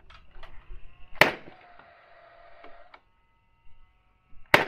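Two sharp strikes on the roof truss framing about three seconds apart, each followed by a ringing tone that dies away.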